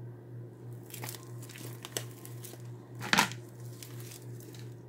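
Sticky glue slime being kneaded and pulled apart by hand: a run of irregular crackling, tearing squelches, the loudest a little past three seconds in. A steady low hum runs underneath.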